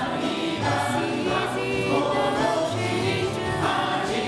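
Christian worship music with a group of voices singing together over instrumental accompaniment.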